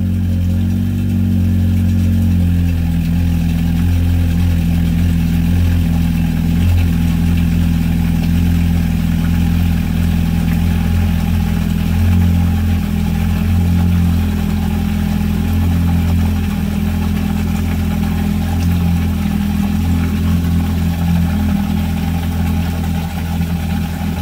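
2020 Yamaha FX SVHO jet ski's supercharged 1.8-litre four-cylinder engine idling steadily on its trailer, run out of the water with a garden hose feeding it cooling water.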